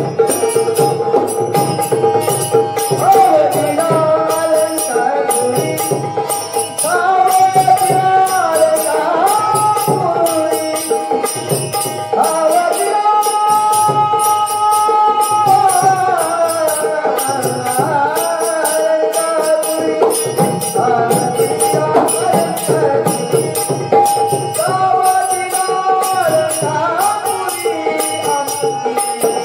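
Marathi gavalan devotional song: a voice sings a gliding melody over a steady held drone, with jingling percussion keeping a fast, even beat.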